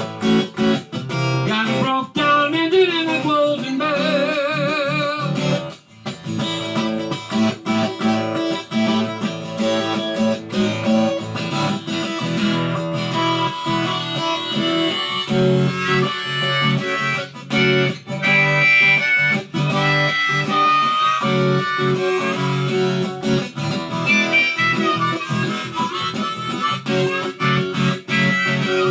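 Harmonica in a neck rack played over a strummed acoustic guitar, an instrumental break with wavering, bending notes a few seconds in.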